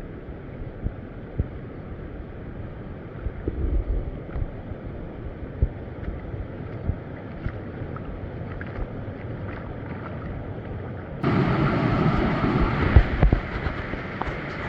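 Stream water sloshing and splashing, with wind buffeting the microphone and scattered low knocks. The sound is muffled at first, then turns abruptly louder and brighter about eleven seconds in.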